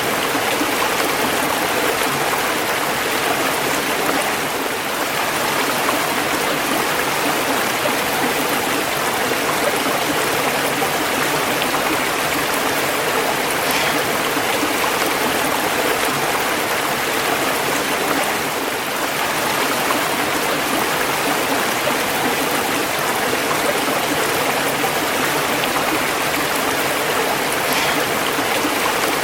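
Running water rushing and splashing steadily over rocks, without pause or change.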